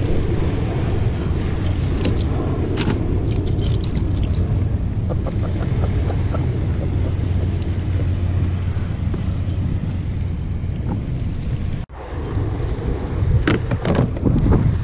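Steady wind noise buffeting the microphone, with light clicks and rattles of fishing tackle being handled. It breaks off suddenly near the end into gustier wind and small waves.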